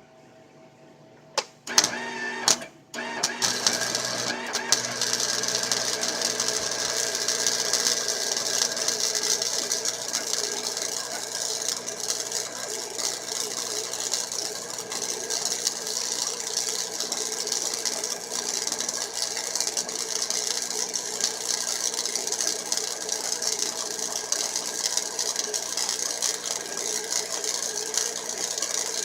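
Flux core arc welding with a Chicago Electric 90 Amp welder: the arc sputters on in a few short strikes, then settles into a steady crackling, frying sound as the bead is laid.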